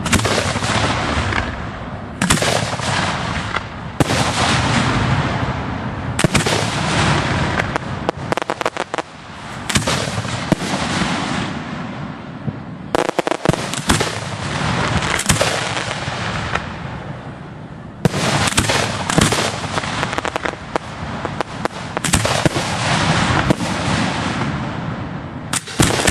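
Fireworks fired at close range from the ground: a rapid, irregular series of sharp launch reports and bangs over a continuous hiss and crackle from ground fountains.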